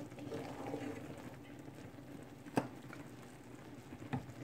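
Wooden spoon stirring a thick, simmering cheddar grain mix in a pot, soft and faint, with one sharp tap a little over halfway through.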